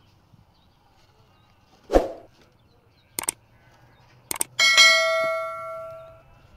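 A heavy thud, then two sharp knocks, then a metal object struck once and ringing with a bell-like tone that fades over about a second and a half.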